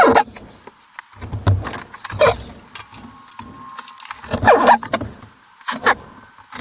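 Sped-up work sounds from screwing up drywall: about five short bursts of screw-gun whirring and clatter, sped up so that they glide and squeak.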